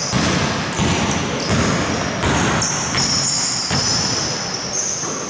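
A basketball being dribbled on a hardwood gym court, bouncing in a steady rhythm with echo from the hall, with high squeaks of sneakers on the floor in the second half.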